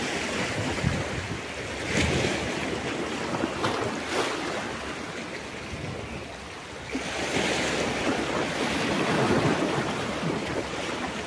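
Sea surf washing in, with wind on the microphone; the surf swells louder about seven seconds in.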